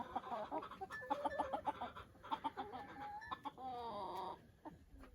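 Chickens clucking, a run of short calls, then one longer drawn-out call a little past halfway.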